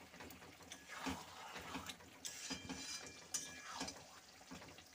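A metal spatula stirring a thick broccoli and potato curry in a metal kadai: repeated wet squelching strokes with scrapes and light knocks of the spatula against the pan.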